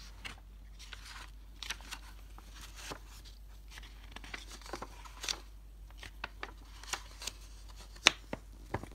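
Pages of a picture book being turned and pressed flat by hand: soft paper rustles and scattered taps, with one sharper snap a little after eight seconds in.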